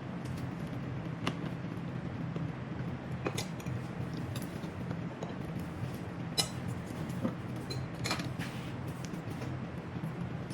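Cutlery clinking against plates while eating: a few scattered sharp clicks over a steady low hum.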